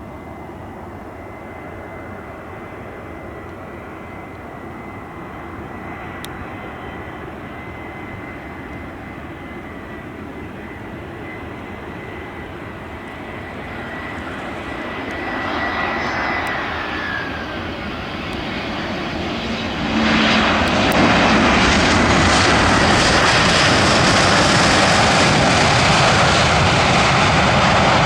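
Airbus A321's twin CFM56 turbofan engines running, with a steady high whine that drops in pitch about sixteen seconds in as the sound grows louder. About twenty seconds in the engine noise jumps sharply louder and stays loud.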